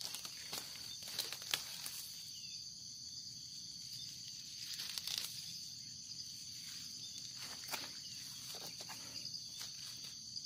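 A clump of paragis grass being pulled up by hand out of stony soil: roots tearing and dry stems rustling in a few short crackles, over a steady high-pitched chorus of insects.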